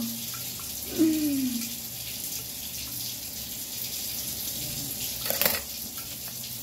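Steady hiss of water running from a tap. About a second in there is a short falling vocal sound, and just past five seconds a single sharp click.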